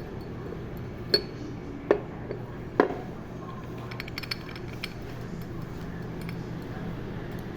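Metal parts of a scooter's CVT variator clinking as they are fitted and moved by hand: three sharp clicks about a second apart, then a few faint ticks, over a low steady hum. The part being tried rattles because its small rubber pieces have worn out.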